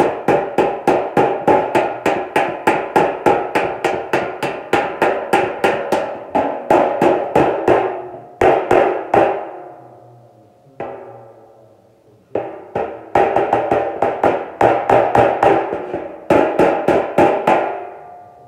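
Door-skin hammer tapping a steel hood side panel against a half-round dolly held underneath: quick light blows, about three or four a second, each leaving the panel ringing. The tapping stops for a few seconds about halfway through, then starts again. This is hammer-and-dolly work knocking down high spots in a dented panel.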